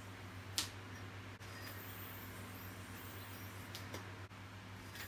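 A few sharp clicks of a yo-yo being played, the loudest about half a second in and two smaller ones near four seconds as the yo-yo is caught in the hand, over a steady low hum.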